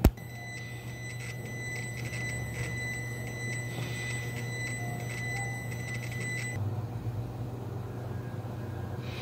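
A sharp click, then a steady high-pitched electronic tone that cuts off abruptly after about six and a half seconds, over a low steady hum.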